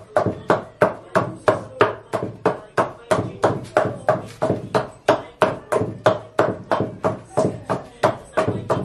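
Wooden pestle pounding egusi (ground melon seeds) in a wooden mortar: a steady, even run of dull thuds, about three strokes a second.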